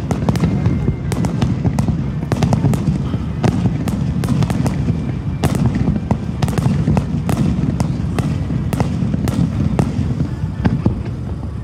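Aerial firework shells bursting in quick succession: a continuous low rumble of booms with many sharp cracks and pops throughout.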